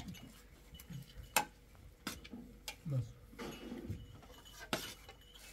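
Dishes and utensils clinking and knocking in scattered, irregular strikes, the sharpest about a second and a half in, with brief faint low voices between.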